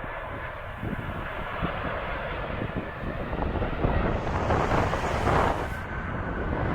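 Jet airliner passing close overhead on its landing approach, its engine noise swelling from about four seconds in, with wind buffeting the microphone.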